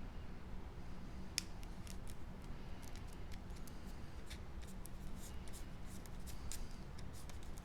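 Paper-craft handwork on cardstock pieces: a quick, irregular series of light clicks and snips starting about a second and a half in, over a faint low steady hum.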